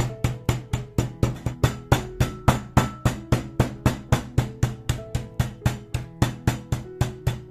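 Rapid, even knife chopping on a cutting board, about four to five strokes a second, over soft background music.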